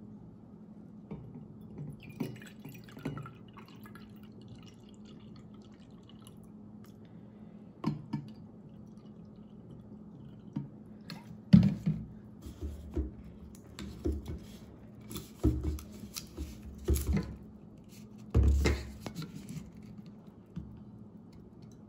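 Iced coffee being poured into a tumbler: liquid pouring and dripping among scattered clinks, taps and knocks of bottles, lid and cup. The sharpest knock comes a little after halfway, and a heavier thud comes near the end.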